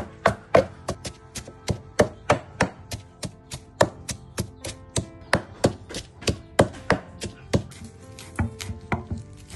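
Wooden pestle pounding chillies in a stone mortar, a steady run of sharp thuds about three a second. Near the end the strikes turn softer as a cleaver chops leafy herbs on a wooden chopping board.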